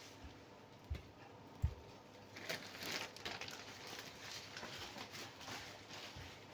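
Handling of plastic shoe charms and their packaging: scattered light clicks and small knocks, with two sharper knocks in the first two seconds.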